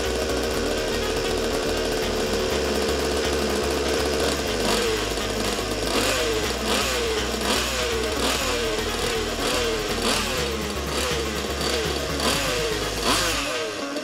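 1/5-scale RC car two-stroke petrol engine with a tuned pipe, running on a test stand. It runs at a steady pitch at first, then from about four and a half seconds in its pitch swells up and falls back in short, even pulses about every two-thirds of a second.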